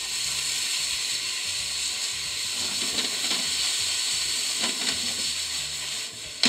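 Yakisoba noodles sizzling in a hot oiled frying pan, the splash of water added to loosen them hissing as it boils off, while chopsticks stir and toss them. A few light clicks of the chopsticks against the pan, and a sharper knock near the end.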